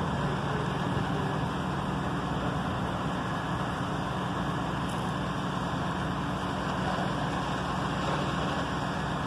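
Steady drone of a running vehicle engine with street traffic noise, a low even hum that does not change.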